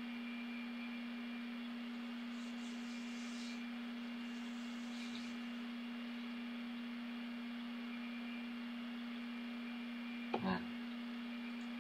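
Room tone: a steady electrical hum with faint hiss. Soft breaths come a few seconds in, and a brief murmur from a man's voice comes about ten seconds in.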